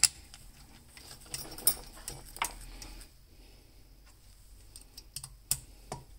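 Small screws and a screwdriver clicking and tapping on the metal valve cover of a four-stroke chainsaw engine as the cover screws are fitted: scattered light clicks, the sharpest right at the start.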